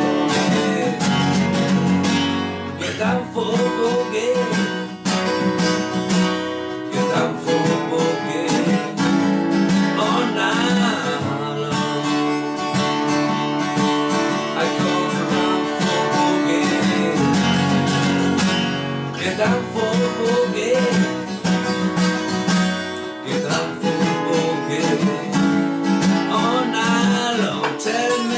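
Two acoustic guitars playing together, strummed and picked in a steady driving rhythm.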